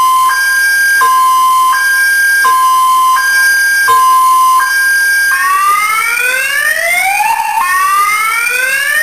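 Electronic car alarm siren stepping through its tone cycle. It first sounds a two-tone hi-lo that swaps pitch a little under once a second, then about five seconds in switches to repeated rising whoops.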